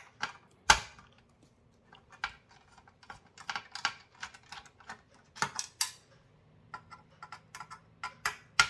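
Irregular sharp clicks and taps of monitor parts being handled and pulled loose by hand during disassembly, with a few louder knocks among them.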